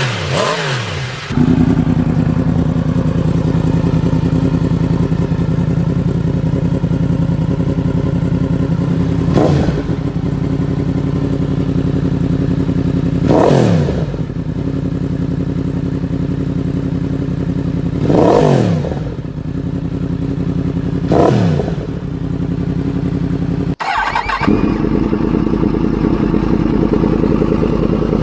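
Yamaha sport motorcycles idling through aftermarket exhausts, blipped four times, each rev rising sharply and dropping straight back to idle. About three-quarters of the way through, a clip cut brings in another bike idling, fitted with an SC-Project exhaust, which starts to rev near the end.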